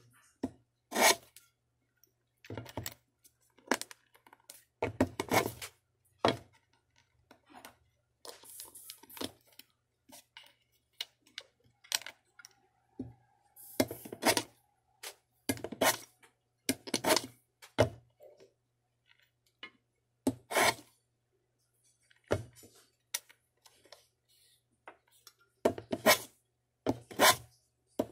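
Hand tools working small wooden kumiko strips: short, irregular scrapes and knocks, about one every second or two, with quiet gaps between.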